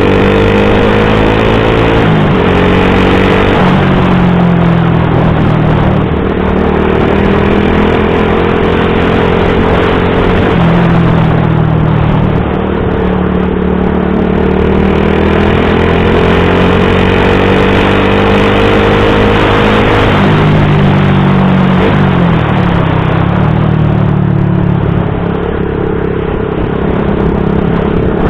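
Motorcycle with an Akrapovic GP M1 slip-on exhaust running on the road with a deep, bassy exhaust note. The engine note shifts pitch suddenly several times, over a steady rush of wind noise.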